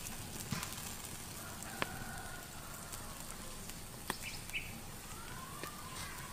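Wood fire under a spit-roasting whole cow crackling, with a few sharp pops, and faint whistled bird calls in the background.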